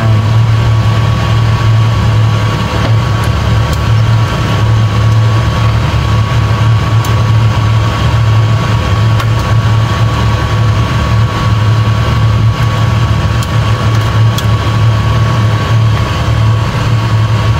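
Steady, loud hum of a fan motor with a thin constant whine above it. A few faint clicks come from the ladle stirring the pot.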